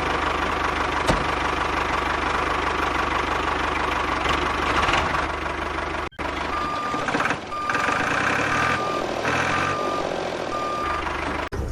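Vehicle engine running steadily. After an abrupt cut about six seconds in, a reversing alarm beeps repeatedly at one pitch over the engine.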